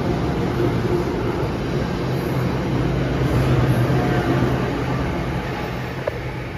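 NJ Transit Arrow III electric multiple-unit train departing and running past close by: wheels on the rails with a steady hum, fading as the last car goes by near the end.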